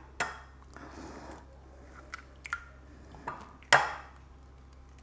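Hen's eggs being knocked against the rim of a white ceramic bowl to crack them: a sharp knock just after the start and a louder one a little before the end, with a few softer clicks in between.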